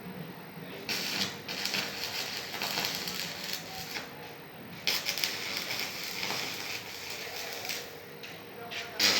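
Electric arc welding crackling on a steel box grill, in runs of about three seconds with short breaks between them.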